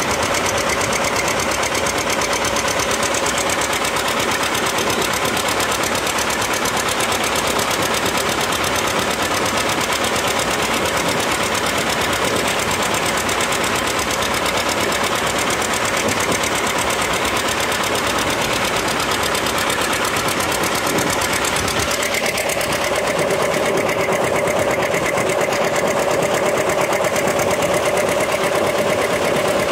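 Antique farm tractor engine running steadily with a rapid, even clatter. Its tone changes a little past two-thirds of the way in, when a steady hum comes to the fore.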